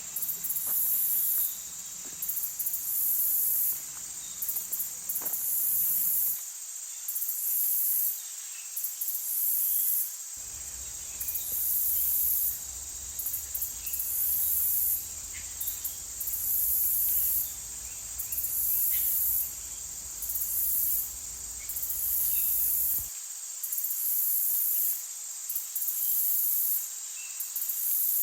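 Insects trilling in repeated high-pitched bursts, each about a second long with short gaps between, and a few faint short chirps over them.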